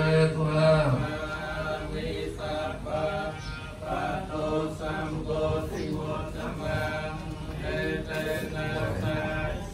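Theravada Buddhist monks chanting into a microphone, long held notes moving in a slow rising and falling line. A low held note ends about a second in.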